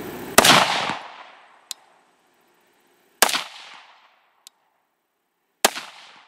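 Three rifle shots from an AR-15 with a 20-inch barrel, about two and a half seconds apart, each followed by a short fading echo. A faint tick follows each of the first two shots.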